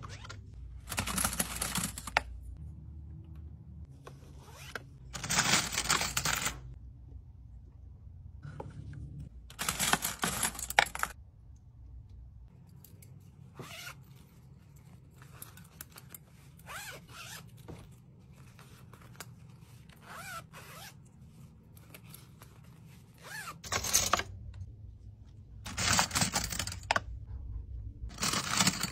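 Hand handling of straw pouches and packaged straws while packing an order: about five short bursts of rustling, each a second or two long, with small clicks and faint handling noise in a long quieter stretch in the middle.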